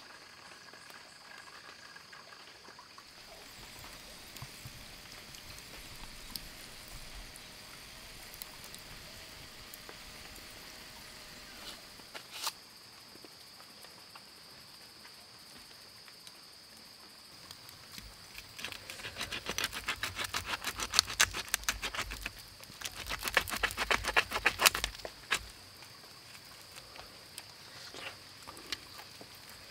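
A steady high insect trill from the night forest, with two loud bursts of rapid crackling and clicking from the cooking fire over the second half, where snake meat roasts on a bamboo skewer above the embers.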